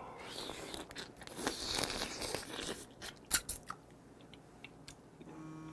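Raw blue crab being bitten and chewed: the shell cracks and crunches between the teeth in a string of sharp clicks, the loudest crack about three seconds in.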